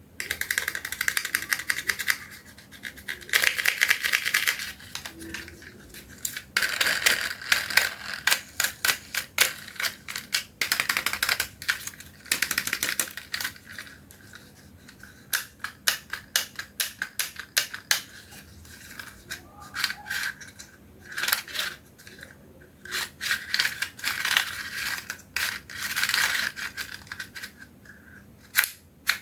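Small plastic toys clattering and rattling against hard plastic, in a long series of quick clicks and rattling runs with short pauses between them.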